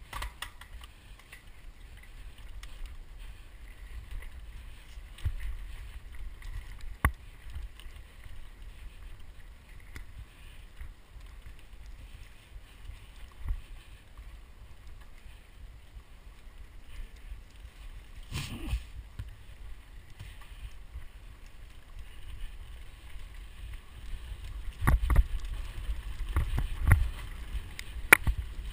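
Mountain bike riding along a dirt forest trail, heard through the rider's action camera: a steady low wind rumble on the microphone with scattered knocks and rattles as the bike hits bumps, the jolts coming thick and loud near the end.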